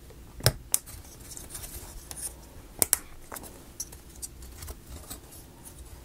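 Plywood parts of a wooden marble-run model kit being handled and fitted together: a few sharp wooden clicks, the loudest about half a second in and near three seconds, among lighter tapping and rubbing.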